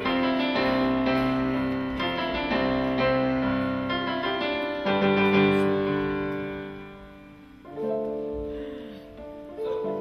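Slow piano chords held and left to ring, fading away about three-quarters of the way through before fresh chords are struck near the end.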